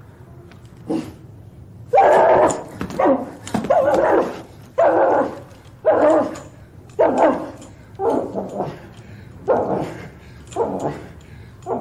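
A dog yelping and barking in a quick series of about nine calls, roughly one a second, from about two seconds in, each call dropping in pitch at its end. The yelps come from a costumed dog character writhing and scratching at a flea.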